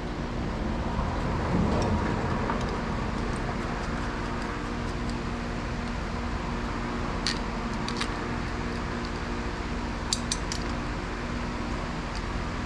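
Steady mechanical hum, like a fan running, under a few light metallic clicks and clinks as bolts are fitted by hand into a brake divider valve block and its steel bracket.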